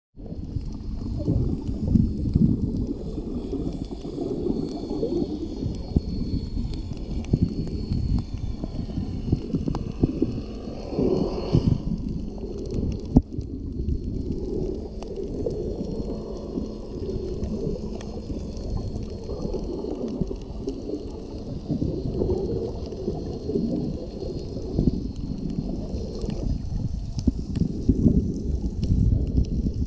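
Recorded underwater in shallow surf: a constant low rumble of moving, surging water, with scattered faint clicks and one sharp knock about 13 seconds in.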